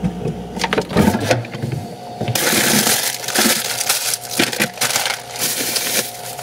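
Plastic bag and food packaging being handled: a few knocks and rustles, then from about two and a half seconds in, loud continuous crinkling of thin plastic as hands dig food out of the bag.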